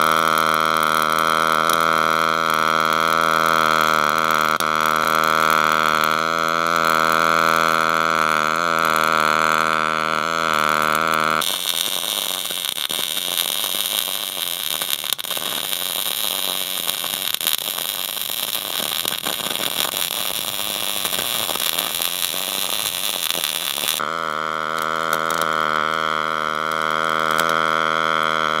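Fronius TransSteel 4000 Pulse MIG welding arc. In pulse mode it gives a steady buzzing tone; about eleven seconds in it switches to standard mode's crackling sizzle, and about twenty-four seconds in it goes back to the pulsed buzz.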